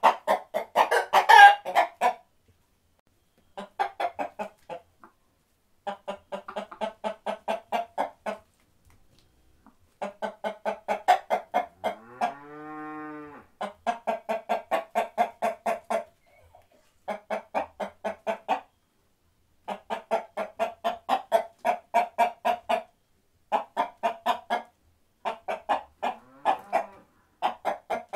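Chickens clucking in quick runs of about five clucks a second, broken by short pauses. A little under halfway through comes one drawn-out call that rises and falls in pitch.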